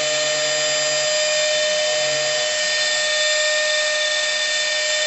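CNC router spindle running with a steady high-pitched whine made of several fixed tones.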